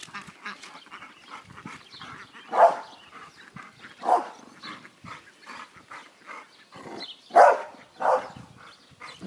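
A pit bull barking: four short barks, spaced out, with the last two close together near the end.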